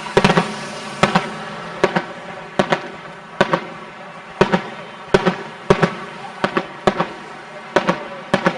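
Fireworks going off in a steady barrage: sharp bangs, most in quick pairs, roughly one pair a second.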